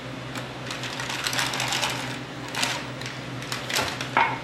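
Raisins being measured into a small glass cup by hand: irregular spells of quick light clicks and rattles, over a steady low hum.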